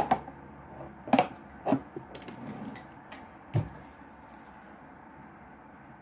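Small hard objects being handled and set down: a run of sharp clicks and knocks, five or so in the first four seconds, then quiet room tone.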